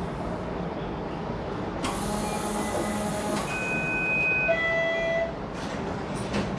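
Toronto TTC streetcar heard from on board: a steady rumble, a rushing hiss about two seconds in, then for about two seconds a few steady electric tones that step to new pitches partway.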